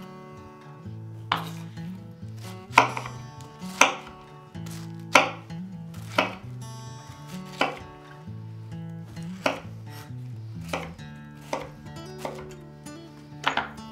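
Kitchen knife chopping through a pineapple onto a wooden cutting board, a sharp knock about once a second, about a dozen in all.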